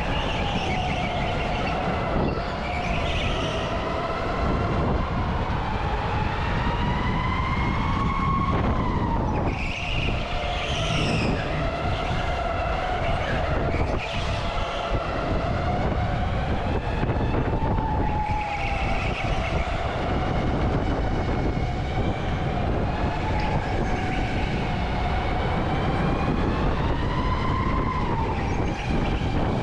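Electric go-kart's motor whining, its pitch rising and falling as the kart speeds up and slows through the corners, over a steady low rumble.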